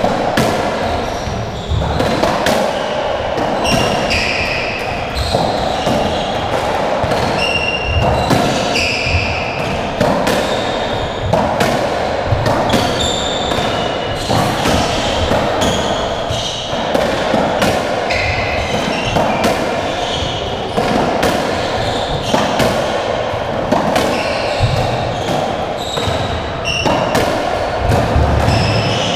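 Racketball rally on a squash court: the hollow rubber ball is struck by rackets and smacks off the walls and wooden floor in sharp cracks, roughly one every second, with short high shoe squeaks on the floor between them.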